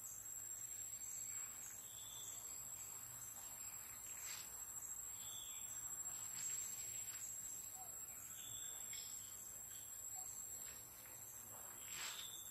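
Forest ambience: insects droning steadily at a high pitch, with a few short chirps and faint rustles.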